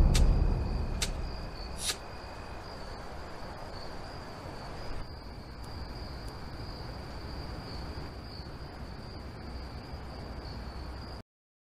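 A steady, high cricket trill holds on throughout, while a deep low rumble from the film's score fades away over the first two seconds. Everything cuts off abruptly near the end.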